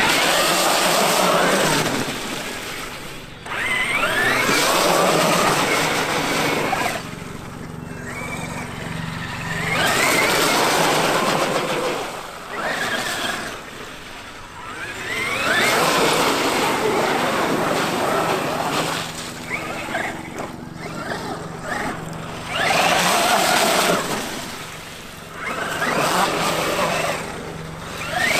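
Traxxas X-Maxx RC monster truck's VXL-8s brushless electric motor and drivetrain running in about six bursts of throttle, each a whine that climbs and falls in pitch, with dips between the runs.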